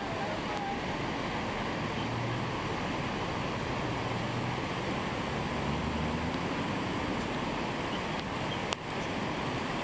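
Rushing water of a shallow stony creek, over which an Isuzu truck's diesel engine pulls along slowly, its pitch rising briefly around the middle. A single short knock near the end.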